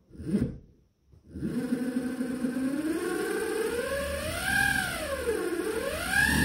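Emco Unimat 3 spindle driven by a 550 W servo motor through a toothed timing belt, starting about a second in and running with a pitched whine. The pitch rises, dips and rises again as the speed goes up and down. This is a belt-tension check: the whine is belt noise, which goes with how tight the belt is set.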